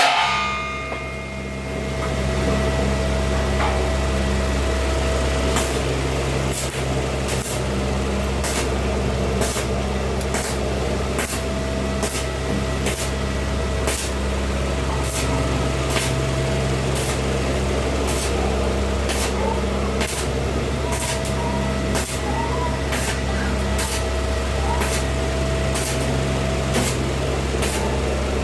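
Steady low mechanical hum with a faint steady high tone. From about six seconds in, it is joined by a run of short, sharp ticks, roughly one or two a second.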